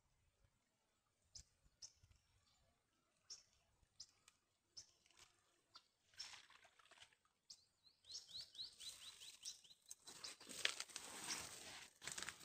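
Faint, scattered bird chirps, with a quick run of falling bird notes about eight seconds in. Over the last couple of seconds, rustling and crackling as a wet cast net is hauled in through dry weeds.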